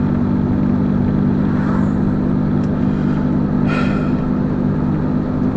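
Steady low drone of a running car, engine and road noise, with a brief hiss about four seconds in.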